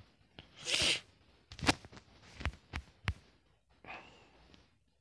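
A man breathing close to the microphone: a sharp breath or sniff about a second in and a softer breath near the end, with a few sharp clicks in between.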